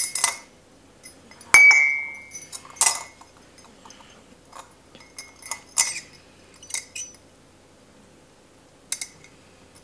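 Metal tea infuser and teaspoon clinking against ceramic mugs: a dozen or so scattered sharp clinks, the loudest about a second and a half in, ringing briefly.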